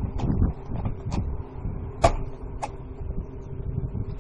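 A few sharp knocks from vinyl siding being fitted to a shed wall, the loudest about two seconds in, over an uneven low rumble of wind on the microphone.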